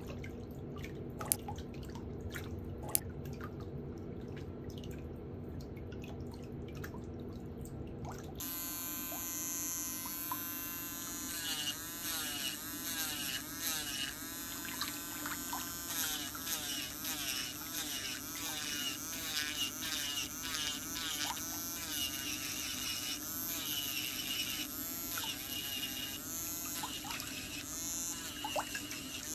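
Toenail nippers snipping a thick big toenail, a few sharp clicks over a low steady hum. About eight seconds in, an electric nail drill with a white grinding bit starts filing the nail, a steady whine that wavers up and down in pitch.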